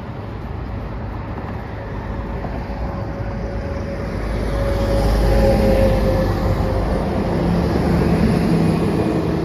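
Heavy trucks driving past on the road, a steady engine and tyre rumble that grows louder about halfway through as a truck comes close.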